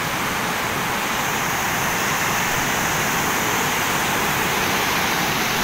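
A waterfall rushing steadily, an even hiss of falling water.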